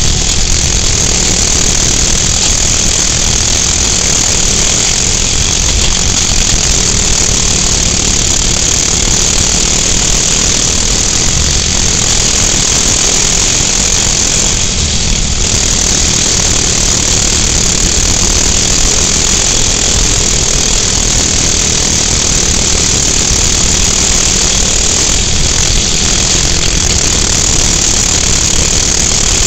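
Small 6.5 hp single-cylinder four-stroke engine of an off-road racing buggy running hard and steady, heard on board, under a steady hiss.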